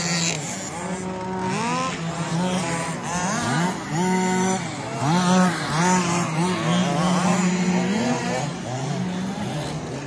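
Several petrol RC Baja buggies' small two-stroke engines racing. They rev up and back down over and over at different pitches that overlap one another.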